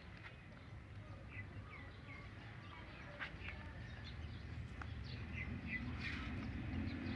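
Small birds chirping now and then in short high notes, over a low steady rumble that grows louder toward the end.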